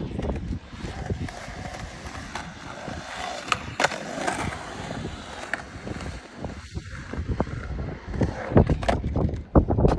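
Skateboard wheels rolling over concrete with a steady rumble, broken by sharp knocks of the board against the concrete, several of them close together near the end.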